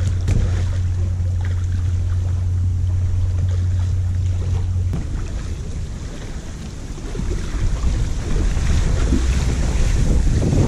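Wind rumbling on the microphone over water lapping at the shore; near the end, water splashing around the legs of a person wading out of shallow water with an inflatable kayak.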